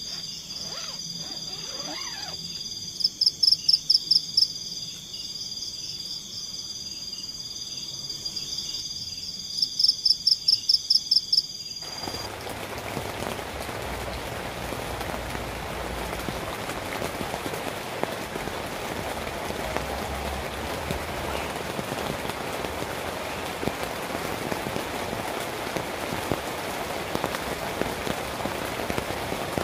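Night forest chorus of steady high-pitched insect trilling, broken twice by a loud, rapid pulsed frog call. About twelve seconds in, it cuts abruptly to the steady hiss of heavy rain.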